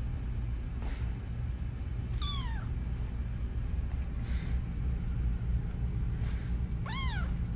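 Very young kitten mewing: several short, high-pitched mews that fall in pitch, the two loudest about two seconds in and near the end, over a steady low hum.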